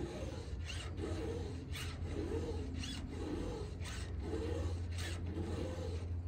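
A square file being stroked by hand across a chainsaw chain's cutters, six rasping strokes about a second apart, over a steady low hum.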